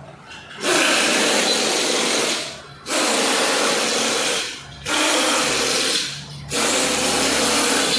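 A power tool run in four bursts of about one and a half to two seconds each, with short gaps between them, while the bolts of a car's engine mounts are worked on.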